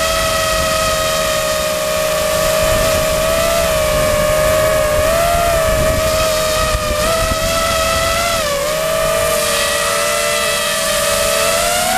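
Quadcopter's brushless motors and propellers whining in flight, heard from the onboard camera: one steady high tone that wavers slightly up and down as the throttle changes, with a low rushing noise underneath.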